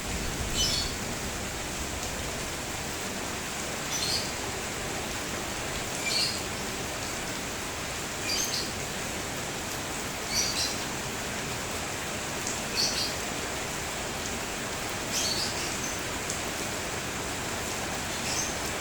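Steady rain falling, with a bird chirping over it: a short high call repeated about every two seconds.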